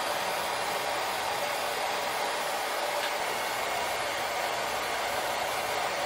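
Handheld hair dryer running steadily on its medium setting.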